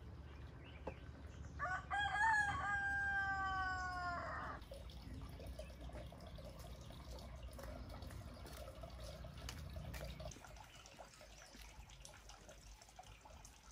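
A rooster crows once, a single call of about three seconds that falls a little in pitch at the end.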